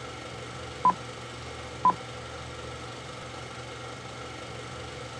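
Film-leader countdown beeps: two short, high electronic beeps a second apart, about one and two seconds in, over a steady low hum that carries on after them.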